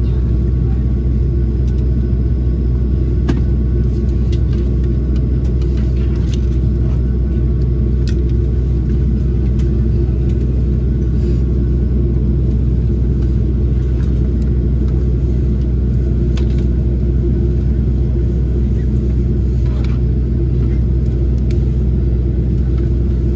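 Steady low rumble of a Boeing 737-800 taxiing, heard from inside the cabin: its CFM56 engines at idle and the rolling airframe, with faint clicks and rattles now and then.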